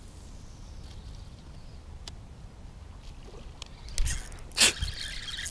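Low rumbling noise on the microphone, then two loud, brief rustling bursts about four seconds in as the fishing rod and the camera are moved.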